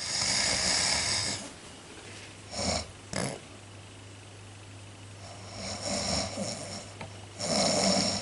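A person snoring: a long snore at the start, two short snorts about two and a half and three seconds in, a longer snore around six seconds and another loud one near the end. A steady low hum runs underneath.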